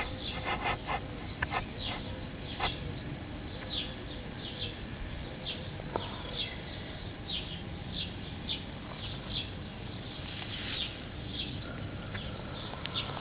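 Small birds chirping in the background: short high chirps come irregularly throughout, over a steady low rumble.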